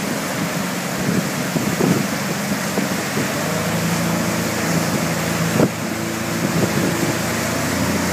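Yamaha 250 V6 outboard motor running steadily under way, its drone mixed with the rush of the churning wake and wind on the microphone. A single sharp thump about five and a half seconds in.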